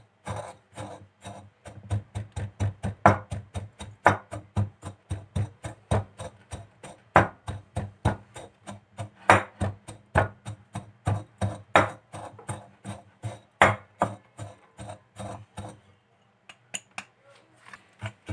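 A drinking glass pounding chocolate cookie crumbs against the bottom of a glass mixing bowl, crushing them into a fine powder: sharp knocks, several a second, that stop a couple of seconds before the end.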